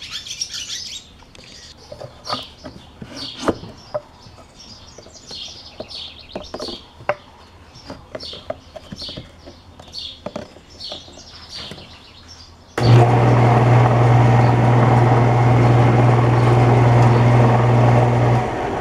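Birds chirp over a few light knocks and clicks. About 13 s in, a table saw with a dado blade starts suddenly and runs steadily with a strong hum. Near the end it is switched off and winds down.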